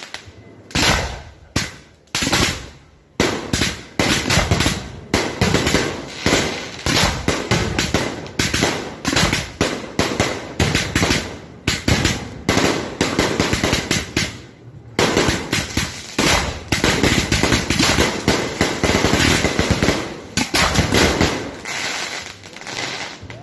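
Aerial fireworks display: a rapid, nearly continuous barrage of bangs from shells bursting, with a brief lull about fifteen seconds in before it picks up again.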